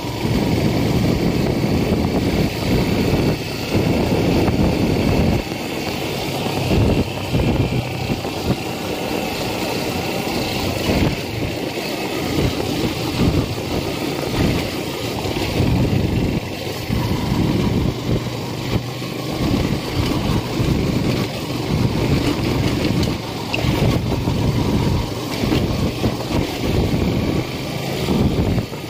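Yamaha FZ V3 motorcycle's single-cylinder engine running while the bike is ridden along a dirt track, the sound surging and dipping irregularly.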